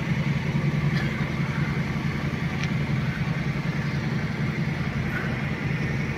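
Street traffic dominated by a steady low engine hum, as from idling motor vehicles.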